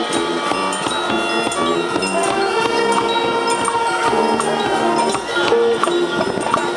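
High school marching band playing: held notes from the wind section layered in chords, with frequent percussion strikes.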